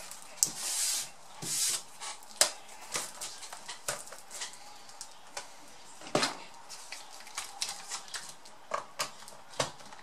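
Plastic wrapping crinkling as a laptop is unwrapped in the first two seconds. Then scattered light clicks and knocks as the laptop is handled, turned over and set down on a rubber work mat, the loudest knock about six seconds in.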